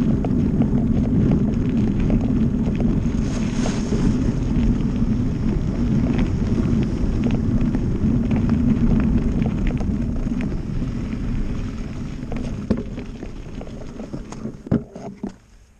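Mountain bike riding fast along a dirt forest trail: steady tyre rumble and wind buffeting the microphone, with small rattles and knocks from the bike over the ground. The noise dies away over the last few seconds as the bike slows, with a few sharp clicks near the end.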